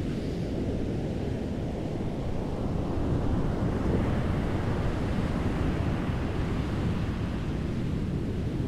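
Ocean surf breaking and washing up the beach, a steady rush of noise, with wind rumbling on the microphone. The surf grows a little louder about three seconds in.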